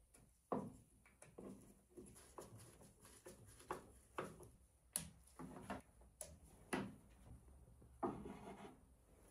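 Faint, irregular clicks, knocks and rubbing from hands working: a small 3V DC motor is fitted onto a wooden board with a screwdriver and black motor housings are set down on the bench.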